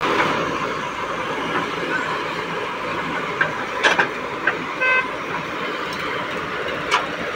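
JCB 3DX backhoe loader's diesel engine running steadily while it digs, with a few sharp knocks from about three and a half to four and a half seconds in and once more near the end. A short vehicle horn toot about five seconds in.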